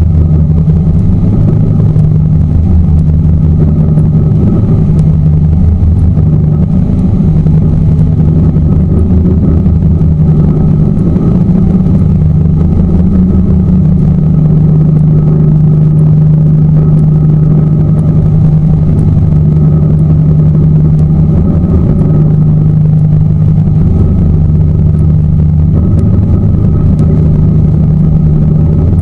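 A tour boat's motor runs steadily as a loud, low drone, its pitch shifting slightly now and then.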